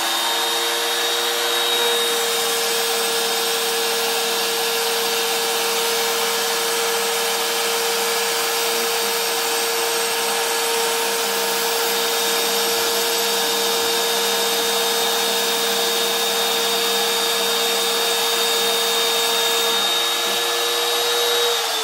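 A 1-horsepower router spindle on a CNC router runs at full speed with a steady high whine. Its 1/8-inch end mill is cutting a 6 mm deep slot through PVC board.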